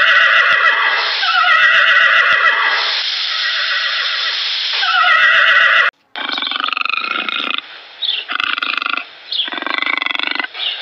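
A horse whinnying, several calls that fall in pitch. This cuts off suddenly about six seconds in to lionesses calling: a series of four short, pulsing roars with brief pauses between them.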